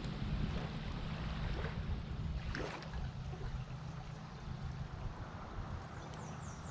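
Lakeside ambience: a steady low rumble of wind on the microphone with a faint wash of moving water.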